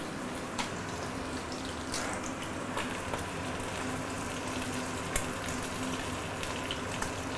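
Small mackerel shallow-frying in hot oil in a stainless steel pan: a steady sizzle with a few sharp pops scattered through it, the fish near the end of cooking. A faint steady hum sits underneath.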